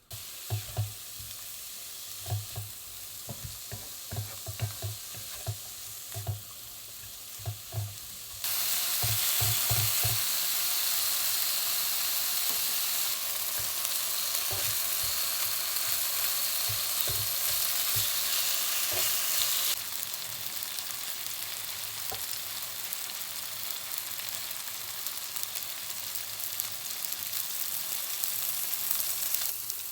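Food sizzling in a hot pan as it is stirred, with light knocks of a utensil against the pan during the first ten seconds. The sizzle grows much louder about eight seconds in and drops back to a steadier level about twenty seconds in.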